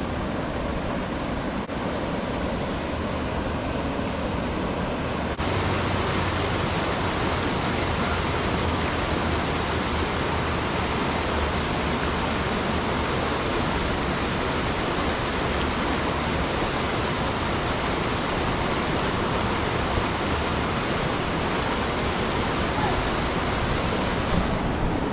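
River water rushing over the concrete wave structure of a whitewater park, a steady rush of whitewater forming one standing wave. It gets louder and brighter about five seconds in.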